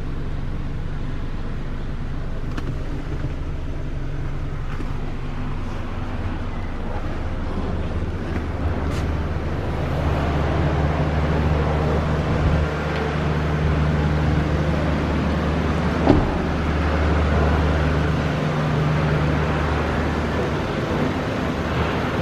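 Toyota Vios engine idling with a steady low hum, a little louder from about ten seconds in; a single knock about sixteen seconds in.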